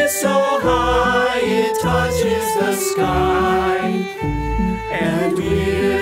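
Folk-style song with fiddle over a stepping bass line.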